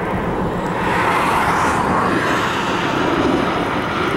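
A car passing on the road, its tyre and engine noise swelling about a second in and easing off, over a steady rush of wind.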